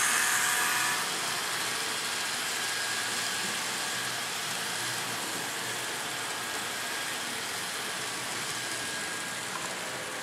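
Model trains running on the layout: a steady whir of wheels on rail and small motors, slowly fading.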